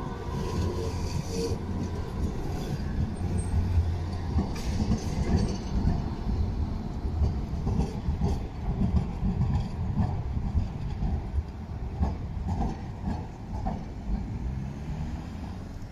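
A multi-section articulated low-floor electric tram passing and running away through a curved track junction, its steel wheels rumbling steadily on the rails.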